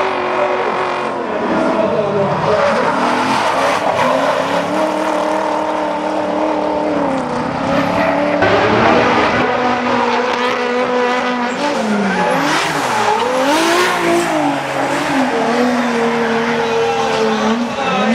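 Two drift cars' engines revving hard through a tandem drift, their pitch repeatedly climbing and dropping with throttle and gear changes. Tyres squeal and skid beneath.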